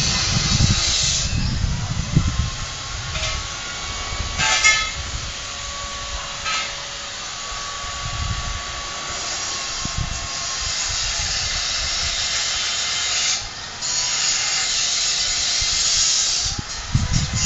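Outdoor ambience of a steady high hiss, with gusts of wind rumbling on the phone's microphone now and then and a few faint clicks.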